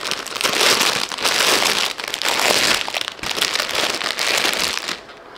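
Plastic packaging bag crinkling as it is handled and opened, an uneven rustling that stops shortly before the end.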